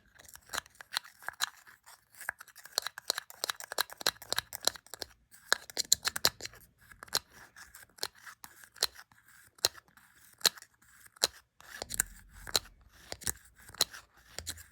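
Close-miked ASMR tapping and clicking on small objects: a rapid, irregular run of sharp clicks and taps with brief pauses.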